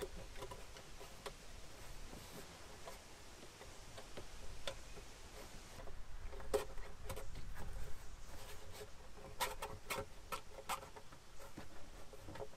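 Scattered light clicks and knocks of hands fitting a black rubber part onto a jet ski engine, over a faint low rumble. The clicks come more often from about halfway on.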